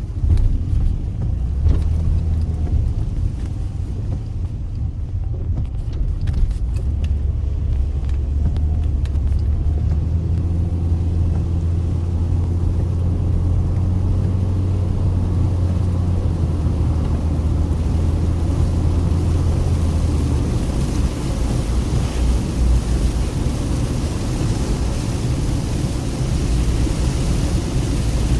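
A car driving on the road, its engine and tyres making a steady low drone, with a few sharp knocks in the first third. A hiss grows over the last third.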